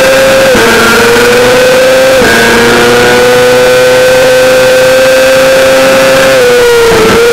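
Yamaha YZF-R6's inline-four engine at full throttle near the top of its rev range. Its pitch dips briefly with two quick upshifts, at about half a second and about two seconds in, then holds steady and falls near the end as the throttle closes. Wind rushes over the onboard microphone throughout.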